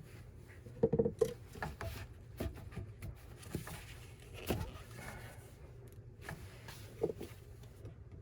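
A series of light knocks and clicks from parts and tools being handled, the loudest about a second in and again near the end, over a steady low hum.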